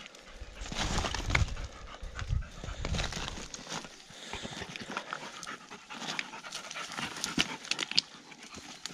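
Hunting dogs panting at close range, with scattered clicks of stones and rustling as they move over loose rock; a low rumble runs through the first three seconds.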